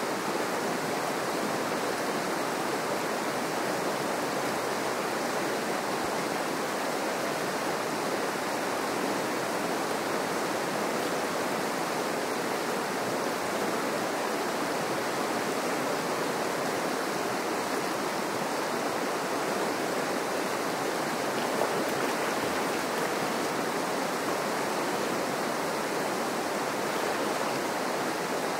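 River water running steadily over riffles: an even, unbroken rush of flowing water.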